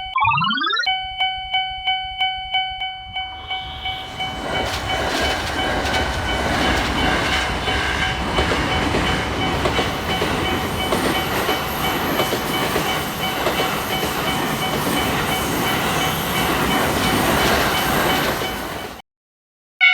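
A short rising boing effect, then a Japanese level-crossing bell ringing rapidly and repeatedly. From about three seconds in, a JR West train runs past the crossing, loud over the bell, which keeps ringing. Everything cuts off abruptly just before the end.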